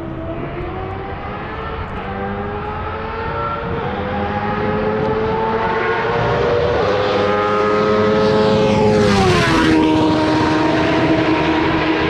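Race car approaching down the straight, its engine note climbing steadily and growing louder. About nine and a half seconds in it passes close by with a sharp drop in pitch, then carries on at a steady lower note.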